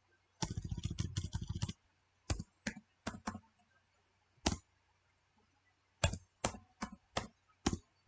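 Typing on a computer keyboard: a quick burst of keystrokes about half a second in, then single key presses spaced out, roughly one every half second to second.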